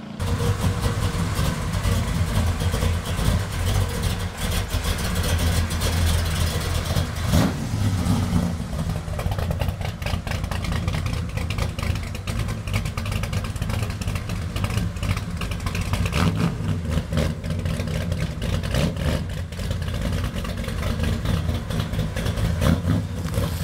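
Chevrolet ZZ572 big-block V8 in a lifted Chevy pickup, running with a loud, choppy rumble and revved now and then.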